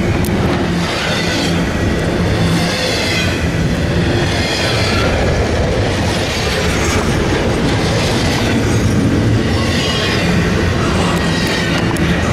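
A double-stack container freight train rolling past at speed close by. Its wheels keep up a steady, loud rumble on the rails, and a hiss swells and fades about every one and a half to two seconds as the cars go by.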